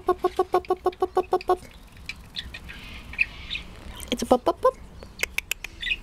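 Blue Quaker parrot (monk parakeet) giving a rapid run of short repeated calls, about seven a second, for the first second and a half. Softer chirps follow, then a few more calls and some sharp clicks near the end.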